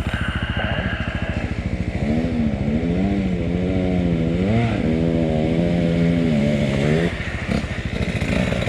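Motorcycle engine idling with a steady throbbing pulse throughout. From about two seconds in to about seven seconds in, an engine revs up and down, its pitch wavering as the throttle is worked.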